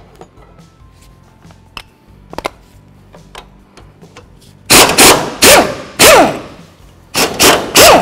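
Pneumatic impact wrench (air gun) hammering in a run of short bursts, loosening 15 mm bolts; each burst trails off in a falling whine as the trigger is released. Before the bursts, only a few light clicks of the tool and socket being handled.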